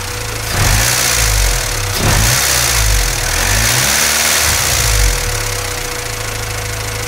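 Honda B16A2 1.6-litre DOHC VTEC four-cylinder revved several times over the first five seconds, then settling to a steady idle. It is cold, on its first start after an oil change, with a light clacking that the owner still hears with Mecarun P18 additive in the fresh oil.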